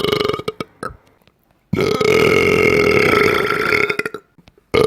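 A long, loud, steady belch lasting about two and a half seconds. The tail of another belch fades in the first half-second, and a new belch starts near the end.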